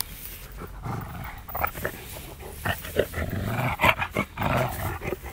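Neapolitan mastiff making a run of short, irregular throaty noises as it rolls on its back in the grass, excited and happy in play.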